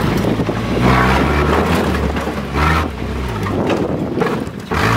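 Vehicle engine heard from inside the cab while driving on a dirt track, its low hum rising and falling with the throttle, with several louder surges and wind noise.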